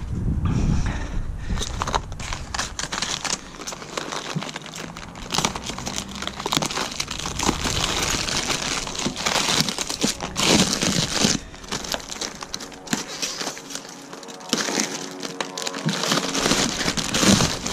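Plastic wrap and honeycomb paper packaging crinkling and rustling as it is pulled at and cut open, a busy, irregular run of crackles.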